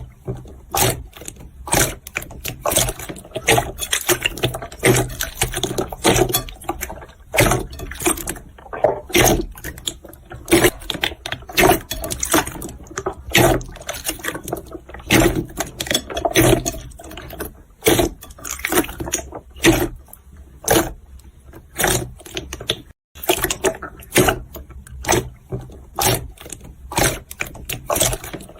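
Jiggly slime being squished and poked by hand: an irregular run of squelching clicks and pops, several a second.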